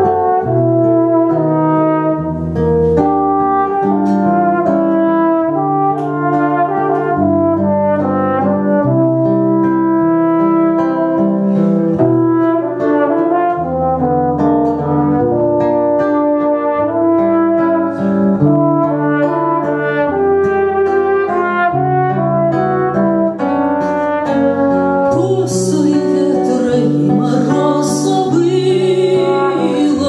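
Instrumental interlude in a song: acoustic guitar accompaniment, with a second instrument playing a melody of long held notes over it.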